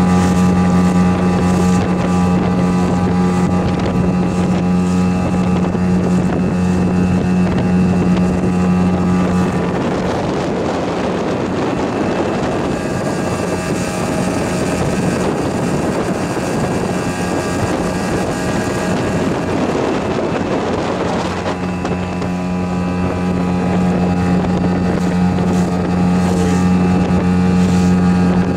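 A small open boat's motor runs steadily at cruising speed, a constant even-pitched drone. For about ten seconds in the middle, a rushing noise of wind and water largely covers the drone, before it comes through clearly again.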